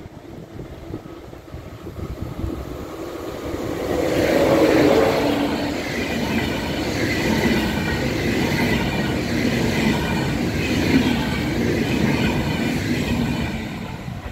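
ICE high-speed train passing at speed: the rushing of wheels and carriages builds to its loudest about four seconds in as the front goes by, stays loud through the passing cars, and fades near the end as the tail power car runs away.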